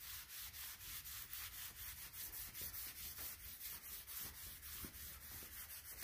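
Cloth rag rubbing in quick, repeated back-and-forth strokes across a steel welding table, wiping condensation off the tabletop.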